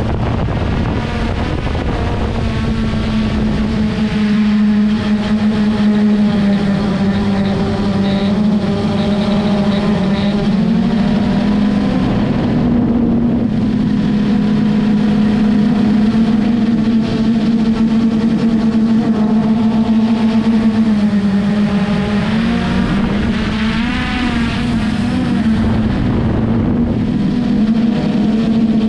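Traxxas Aton quadcopter drone's motors and propellers whirring with a steady hum, the pitch drifting up and down a little as the motors change speed in flight.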